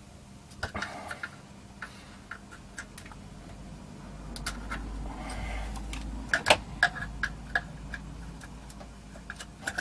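Scattered small clicks and taps of a socketed 8501 processor chip being pulled and swapped on a Commodore C16 circuit board, with a low rumble of handling in the middle.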